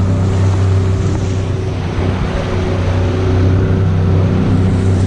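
Evinrude E-TEC 90 hp two-stroke outboard running steadily at trolling speed, with the rush and slap of rough water against the hull and wind noise.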